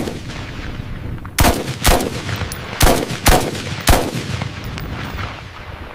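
Rifle gunfire: six single shots at uneven intervals of about half a second to a second and a half, each followed by a rolling echo.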